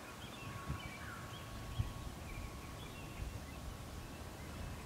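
Quiet countryside ambience: faint, scattered bird chirps over a low, steady rumble.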